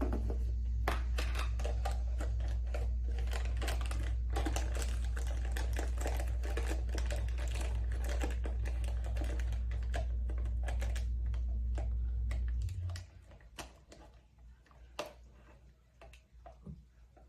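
Rapid light clicks and taps of small items being handled, dense for most of the stretch and sparser near the end, over a steady low hum that cuts off suddenly after about thirteen seconds.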